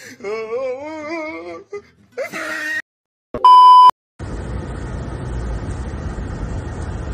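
A voice for about the first second and a half, then a loud, steady beep tone lasting about half a second, edited in, at about three and a half seconds. After a brief gap, steady road and engine noise heard from inside a moving car takes over from about four seconds on.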